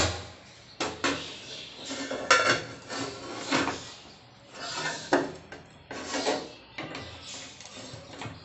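Cookware knocking and scraping: a lidded pot is lifted off the stove and set down on a tawa over a karai. There is a string of short, irregular clanks and scrapes, about one a second.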